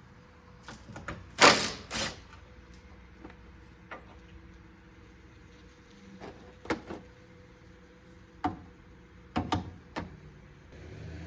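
Scattered knocks and clicks of hand tools and parts as the coolant reservoir is unbolted and worked loose, the two loudest knocks coming about one and a half and two seconds in. A faint steady hum lies underneath.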